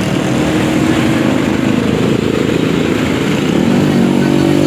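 Motorcycle engine running steadily, its pitch drifting slightly up and down.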